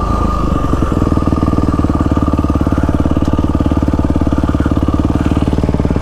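Yamaha WR450F dirt bike's single-cylinder four-stroke engine running at low revs, with an even, rapid thump.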